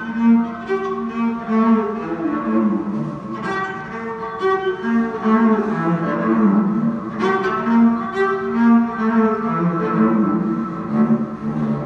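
Solo cello played live with the bow: a continuous line of held notes, one after another, moving up and down in pitch.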